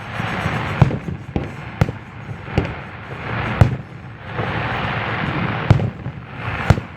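Fireworks display: aerial shells bursting in sharp bangs about once a second, with a dense crackling haze between the bangs that is thickest just past the middle.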